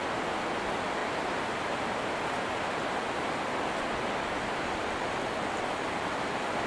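Steady, even rushing of water, like a mountain stream or waterfall, with no breaks or changes.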